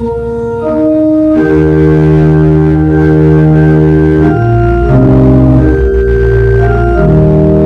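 Organ playing a slow piece in held, sustained chords. A few single notes open it, then full chords enter about a second and a half in and change every second or two.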